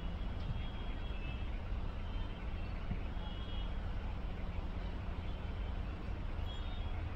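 Steady low rumble of street traffic under an even hiss of fish deep-frying in a large kadai of hot oil.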